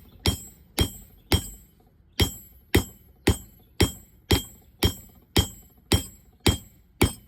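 Hand hammer striking hot steel on an anvil in a steady rhythm of about two blows a second, each blow ringing out with a bright metallic tone. There is a short pause about a second and a half in. The blows flatten the end of the hook where the mounting holes will go.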